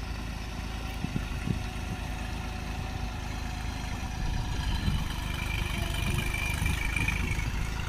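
Ford tractor's diesel engine running steadily as it drags a suhaga leveller through a flooded paddy field.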